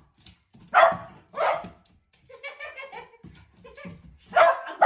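Large black-and-tan shepherd-type dog barking in short loud bursts, twice about a second in and again near the end, with a fainter drawn-out cry in between.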